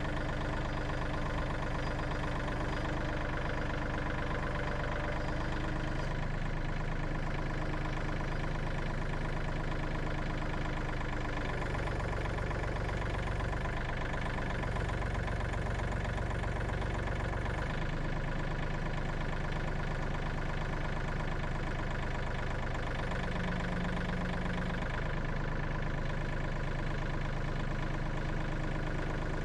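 An engine running steadily near idle, its low hum shifting a few times.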